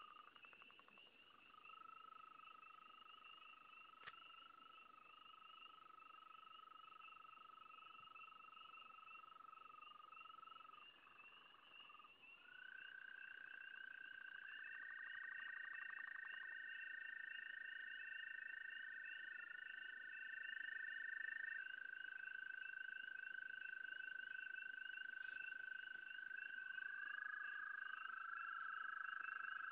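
Frogs calling: long, steady trills, each held for several seconds, with a second and third caller overlapping from about twelve seconds in. Beneath them runs a faster, higher-pitched pulsing call that never stops.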